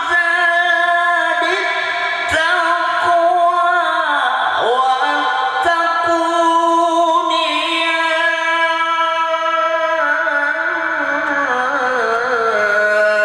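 A man's voice in melodic Quran recitation (tilawah), holding long, high, ornamented notes that turn slowly from pitch to pitch, with short breaks between phrases.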